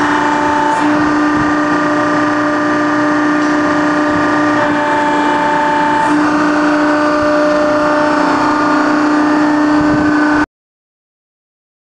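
Hydraulic test bench pump running with a steady, loud hum and whine while a repaired steering valve is tested under pressure, its tone shifting slightly a few times as the valve is worked. It cuts off suddenly about ten and a half seconds in.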